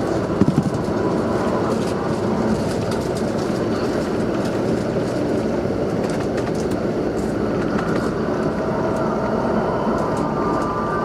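Steady running noise inside a moving bus: engine and road rumble, with scattered small rattles and a few quick knocks about half a second in.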